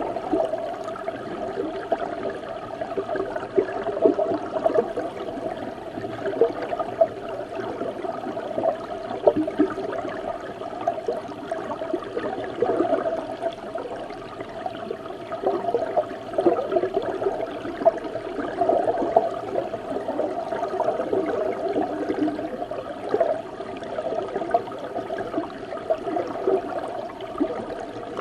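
River water flowing and bubbling, heard from inside the river: a continuous, muffled gurgling with little hiss.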